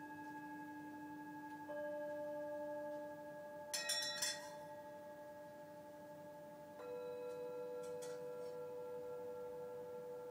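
Tibetan singing bowls struck one after another with a mallet, each ringing on with several steady overlapping tones; new strikes come about two seconds in and again near seven seconds. Around four seconds in, a brief clatter of sharp metallic clicks is the loudest moment.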